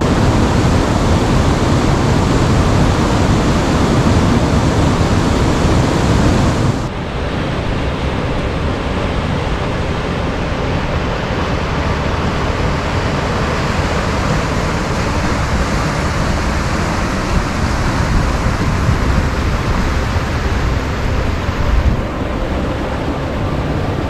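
River water rushing through a rocky gorge and over rapids, a loud, steady rush of noise. It steps down a little about seven seconds in.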